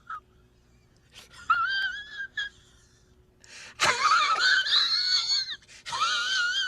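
A man's high-pitched, wheezing laugh in several bursts, its pitch wavering, with the longest burst in the middle.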